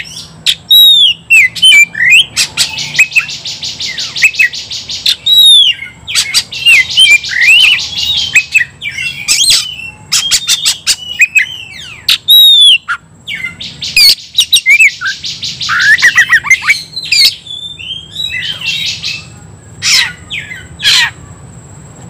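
Oriental magpie-robin in loud, aggressive fighting song: sliding whistled notes and sharp clicks alternating with long, very fast buzzing rattles, in several phrases broken by brief pauses.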